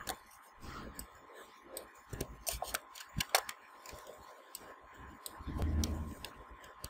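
Computer keyboard keystrokes and mouse clicks, a scattered run of irregular light clicks as code is typed and edited.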